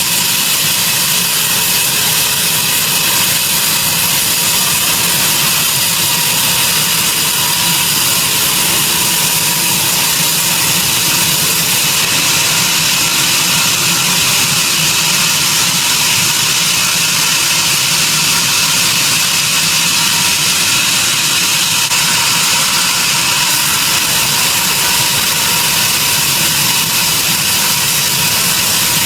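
Sawmill machinery running steadily: a loud, unbroken mechanical noise with a constant high hum.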